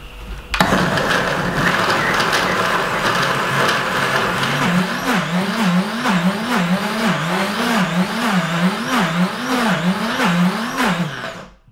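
Optimum 9200 high-speed blender starting abruptly and running hard on a thick, sticky mix of dried apricots and desiccated coconut while the tamper pushes it into the blades. After a few seconds its pitch rises and falls about once a second. It cuts off suddenly near the end.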